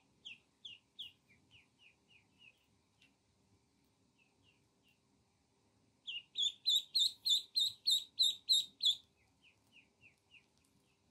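Duckling peeps: scattered short, high, slightly falling peeps, then about six seconds in a loud fast run of about four peeps a second for three seconds, before they ease back to softer scattered peeps.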